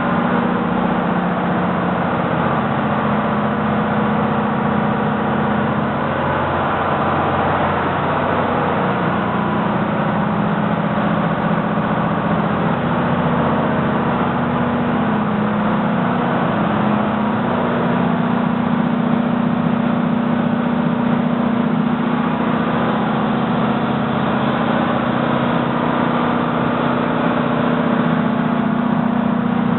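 Ship's engine-room machinery running: a loud, continuous mechanical hum with a constant low drone, unchanging throughout.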